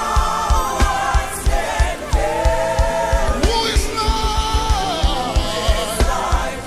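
Gospel worship music: voices holding long sung notes that slide between pitches, over a band with drums hitting beneath.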